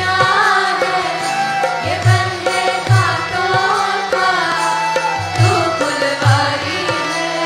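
A Hindi devotional bhajan: a voice sings the melody over hand-drum accompaniment. Deep bass drum strokes recur in pairs.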